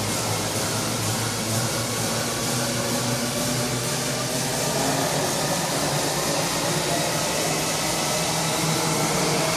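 Steady background room noise: a constant hiss with a low hum and no clanks or other sudden sounds.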